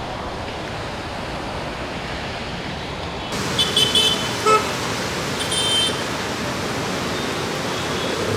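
Steady hiss of heavy rain falling on a flooded city road, with traffic passing. From about three seconds in, vehicle horns give a few short, high-pitched toots, the last near six seconds.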